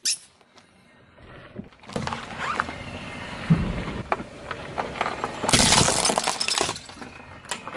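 Car tyre crushing a plastic tub of wooden toothpicks: a loud, dense crunch of cracking plastic and snapping wood lasting about a second, near the end. Before it, a few seconds of quieter crackling and scattered snaps as the tyre rolls over the asphalt.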